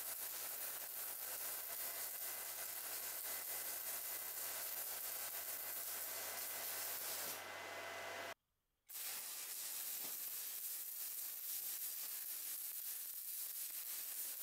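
Faint steady hiss of a DC welding arc running at around 150 amps. It cuts out for about half a second a little past the middle, then starts again.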